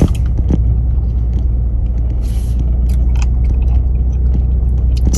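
Steady low rumble of a moving car heard from inside the cabin, with a sharp knock at the start, another near the end and a few small ticks.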